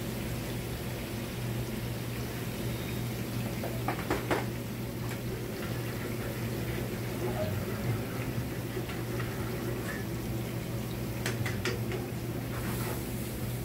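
Steady commercial-kitchen noise from a gas range: a constant low hum with a hiss over it, and a few utensil scrapes and clinks against a frying pan about four seconds in and again near the end.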